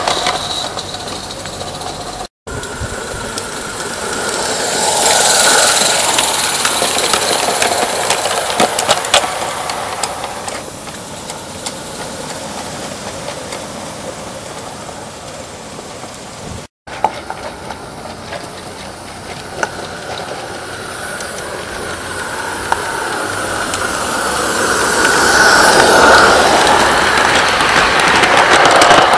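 Small-scale live steam locomotive running past with quick exhaust beats and steam hiss, along with the wheels of its train rolling on the track. It grows loud and fades twice as it passes close, and the sound breaks off abruptly twice.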